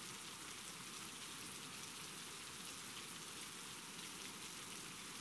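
Steady rainfall, an even hiss of rain at a constant level.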